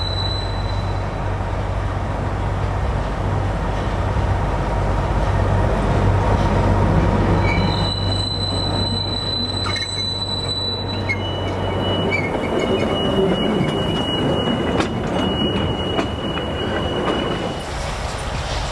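Narrow-gauge locomotives running light and passing close by: a steady diesel engine drone under thin, high-pitched steel wheel squeal from the track. The drone fades after about twelve seconds while the squeal carries on, with two sharp clanks near the end.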